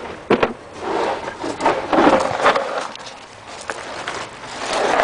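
A sharp knock, then a couple of seconds of rough scraping and rubbing, like hard parts being handled and shifted against each other.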